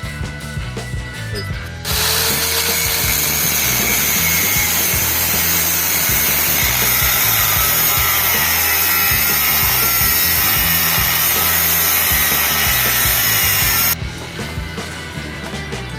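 A power tool running steadily against a surface for about twelve seconds, starting abruptly about two seconds in and cutting off near the end, the sort of abrasive work done when stripping parts during a motorcycle restoration. Background music plays underneath.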